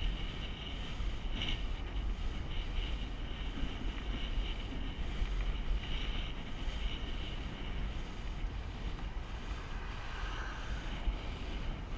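Wind rushing over a moving camera's microphone, with a steady low rumble.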